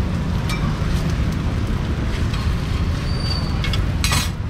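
A low, steady engine rumble, with a brief loud hiss about four seconds in.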